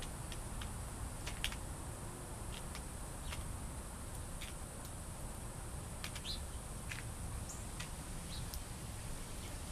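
Birds giving short, scattered chirps every second or so, over a steady low rumble and a steady high hiss.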